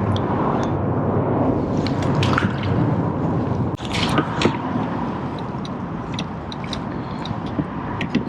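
Small water splashes and drips, many short ticks scattered through, with a cluster about four seconds in, over a steady low rushing noise.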